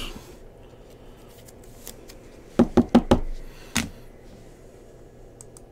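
Trading cards being set down and knocked against a tabletop: four quick sharp knocks about two and a half seconds in, then one more shortly after.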